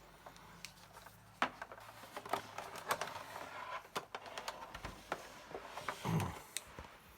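Scattered light clicks and knocks of a small part being handled and fitted onto the back of a Commodore MPS-801 dot-matrix printer's case.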